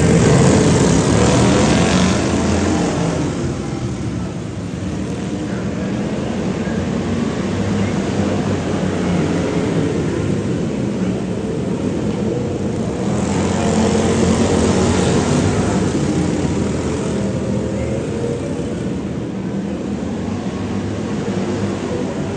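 Several racing lawn mowers' small engines running hard together, the sound swelling as the pack passes right at the start and again about thirteen to fifteen seconds in.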